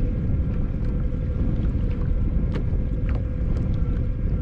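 Wind buffeting the microphone of a camera on an open kayak, a dense low rumble throughout, with a faint steady hum and scattered small clicks and splashes.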